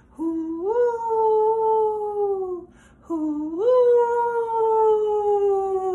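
A woman's voice imitating the howling wind of a snowstorm, "hoooo woooo": two long calls, each rising at the start and then sliding slowly down in pitch.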